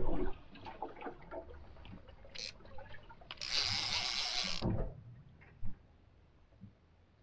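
Sea water lapping and splashing against a small boat's hull, with small knocks and one louder hissing splash lasting about a second halfway through; a single knock at the very start.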